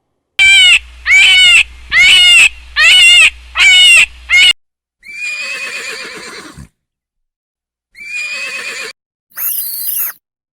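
Loud animal calls: five short pitched calls in quick succession, then three longer calls with pauses between them.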